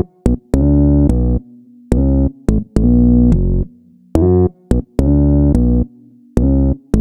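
Background music: short, clipped chords with brief silent gaps between them, in a bouncy rhythm.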